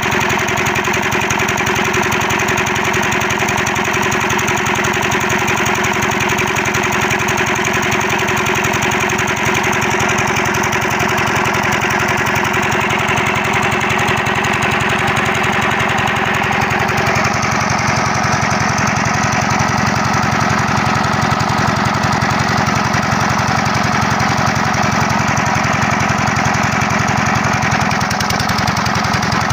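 LD 25 hp single-cylinder diesel engine running steadily with a fast, even knocking beat while it belt-drives a water pump. Its tone changes slightly a little over halfway through.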